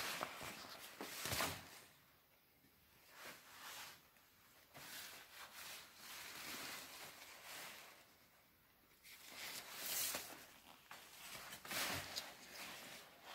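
Thin plastic raincoat rustling and crinkling as it moves, in irregular spells with a couple of short pauses.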